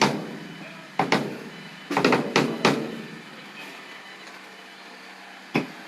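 Scattered sharp knocks with short ringing tails: one at the start, one a second in, a quick cluster of three about two seconds in, then one near the end, over a faint steady hum.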